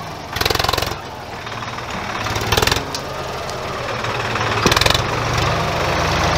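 Swaraj 963 FE tractor's diesel engine labouring under heavy load as the 4WD tractor struggles up loose sand, surging louder three times. The strain means the tractor is bogging and can't make the climb.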